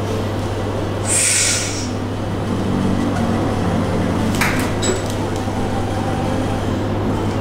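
A powerlifter straining under a near-maximal bench press: a sharp hissing breath about a second in, then low strained grunting, with a sharp click about halfway through, over a steady low hum.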